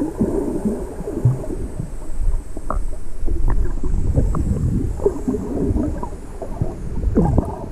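Muffled underwater sound heard by a submerged GoPro camera: irregular low rumbling and gurgling of water moving around it, with scattered faint clicks.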